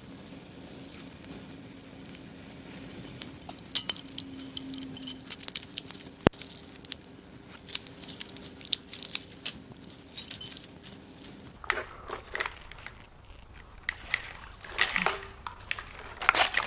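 Engine wiring harness being worked free: plastic connectors unclipping and the loom rustling and clattering against the engine, a string of short clicks and crackles. A faint steady hum underneath stops about two-thirds of the way in.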